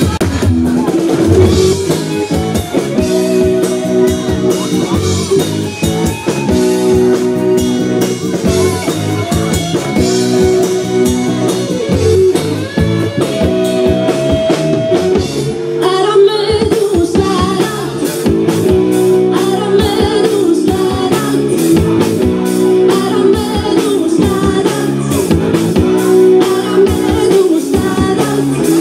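A pop-rock song with a singer over a drum kit and electric guitar, at a steady beat.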